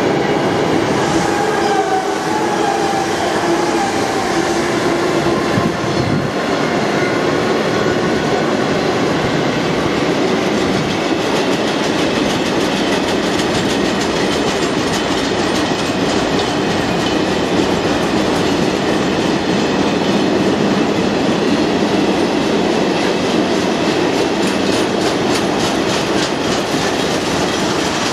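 Loaded car-carrier freight wagons rolling past: a loud, steady rumble of steel wheels on rail. A wavering wheel squeal sounds in the first few seconds, and a rhythmic clickety-clack of the wheels comes through in the second half.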